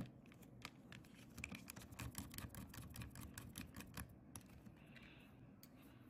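Precision screwdriver turning a small T5 Torx screw into a laptop's bottom cover: a quick run of light clicks lasting about three and a half seconds.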